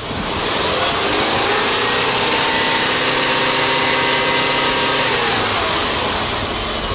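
Subaru Legacy B4 2.0i's EJ20 flat-four engine being free-revved with no load: the revs climb over about two seconds, hold steady for about three, then drop back toward idle.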